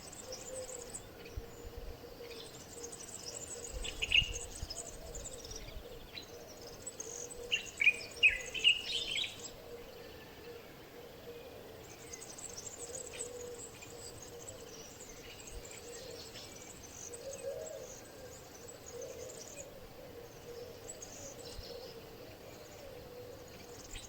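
Birds chirping and calling over a steady background hiss, with the loudest bursts of calls about four seconds in and again around eight to nine seconds, and a faint steady hum underneath.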